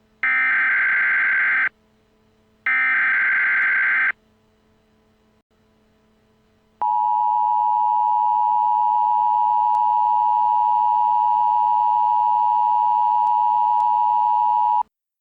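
Emergency Alert System alarm. It opens with two harsh data bursts of about a second and a half each, the coded SAME header. About seven seconds in comes the steady two-tone EAS attention signal, held for about eight seconds before it cuts off.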